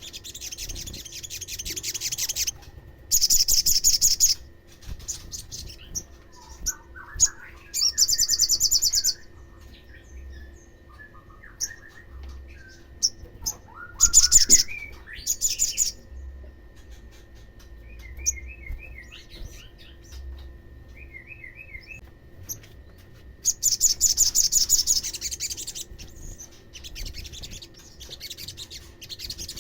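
Olive-backed sunbird song: several loud bursts of very fast, high-pitched trilling, each a second or two long, with softer chirps and short twittering phrases between them.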